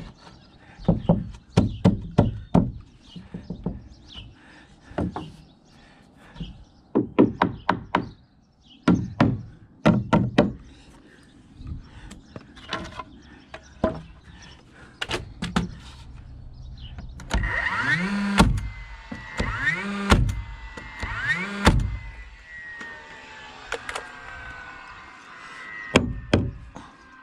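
Irregular knocks and clatter of wooden tongue-and-groove siding boards being handled and tapped. About 17 s in, a power saw's motor whirs up and down in three short bursts, then winds down slowly with its pitch falling.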